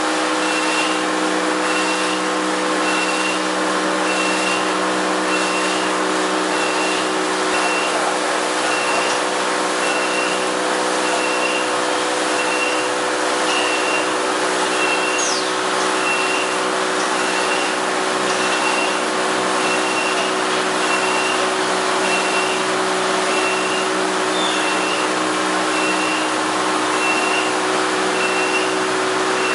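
Yadong SYS-901 automatic tunnel car wash running: a steady hum of its motors and pumps under the hiss of water jets spraying a car. A short high beep repeats about once a second throughout.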